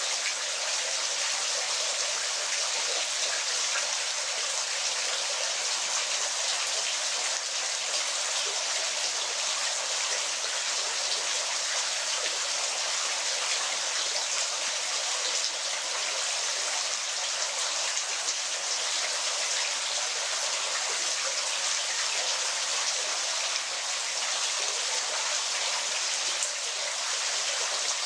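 Steady hiss of falling, splashing water, even and unbroken throughout, bright and thin with almost no low rumble.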